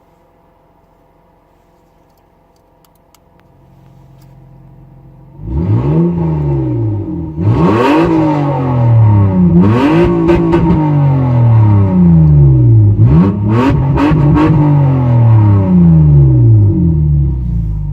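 Toyota Mark II JZX90 engine revved repeatedly through a straight-out cat-delete exhaust with an electric cutout valve, very loud. After a faint idle, the sound jumps up about five seconds in, then the revs rise quickly and fall back about every two seconds, six times, before settling to a louder idle near the end.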